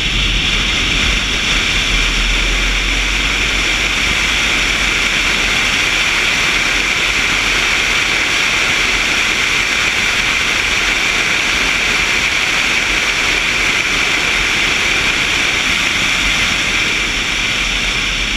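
Steady rush of wind and road noise over a camera mounted on the outside of a moving car, with a low rumble underneath and no clear engine note.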